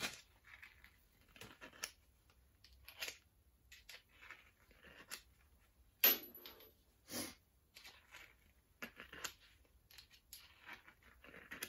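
Scattered scrapes, clicks and clinks of small metal parts being handled and worked by gloved hands on a steel bench. A sharp metallic clink about six seconds in, with a brief high ring, and another about a second later are the loudest sounds.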